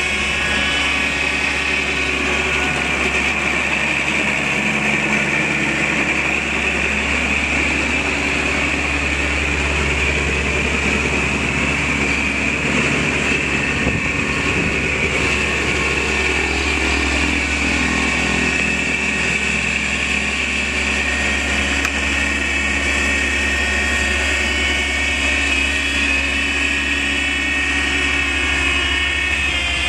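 Kubota B3200 compact tractor's diesel engine running steadily under load while its front-mounted snowblower throws slush, with a steady high whine over the engine note. The engine pitch shifts a little around the middle as the load changes.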